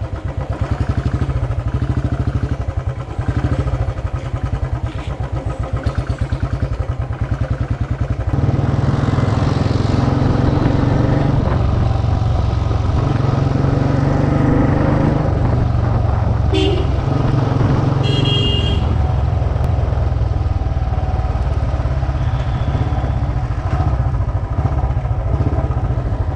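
Motorcycle engine running under way, its exhaust beat evenly pulsed at first. About eight seconds in it turns louder and steadier with traffic around it. A vehicle horn honks briefly twice, about two-thirds of the way through.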